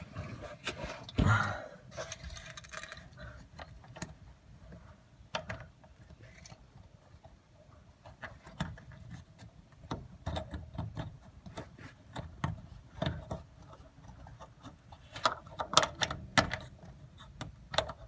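Scattered clicks, taps and rattles of hand work on a fuel pump's metal quick-connect fuel-line fittings as a plastic disconnect tool is fitted into them. There is a heavier knock about a second in and a quicker run of clicks near the end.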